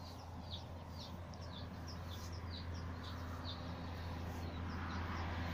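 A small bird chirping repeatedly, short falling chirps about three a second that thin out after about three and a half seconds, over a steady low hum.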